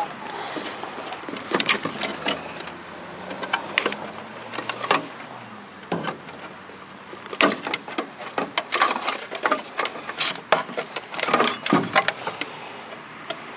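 Hand wire cutters snipping through insulated wires, with handling knocks against a plastic case: irregular sharp snips and clicks, some in quick clusters.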